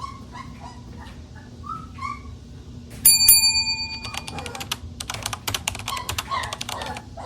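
Young Boerboel puppies whimpering with short high squeaks. About three seconds in, a sharp metallic, bell-like ring sounds twice in quick succession and is the loudest thing heard. It is followed by a rapid clatter of clicks and rustling while the puppies keep whimpering.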